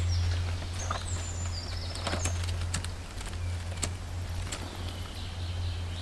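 Green leaves and dry twigs rustling and snapping as they are packed into a pile by hand, with a few sharp crackles spread through. Several short, falling high chirps sound in the first couple of seconds, over a steady low hum.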